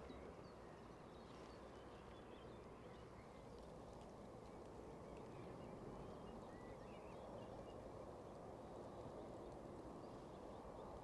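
Near silence: faint open-air background with a steady low hum and a few faint, short high chirps.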